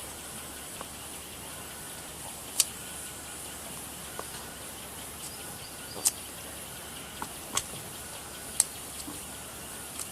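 Hand stamping on paper with unmounted stamps: scattered light taps and clicks as stamps are handled and pressed down, about eight short sharp ticks at irregular intervals over a faint steady hiss.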